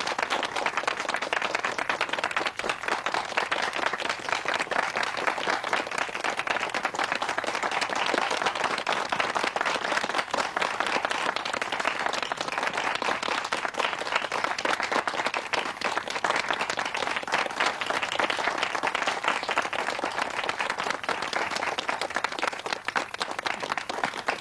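A crowd applauding, a dense steady patter of many hands clapping that eases slightly near the end.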